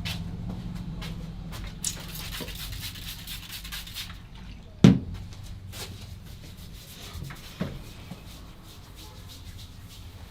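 Hands rubbing and kneading a scalp and hair during a barber's head massage, a steady scratchy rub dotted with small taps. About five seconds in there is a single loud, sharp hand smack, with lighter ones near two seconds and after seven seconds.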